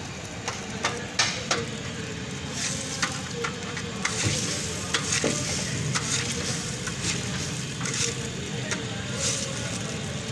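Egg frying in oil on a flat griddle: a steady sizzle with scattered sharp clicks and pops throughout.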